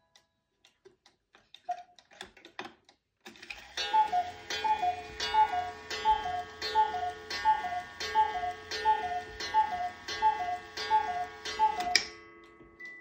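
Hubert Herr one-day cuckoo clock calling the hour: its bellows-blown two-note cuckoo, high then low, repeats about a dozen times at an even pace, a little over half a second apart, and stops with a sharp click of the mechanism. A few faint clicks come first, as the hands are turned by hand.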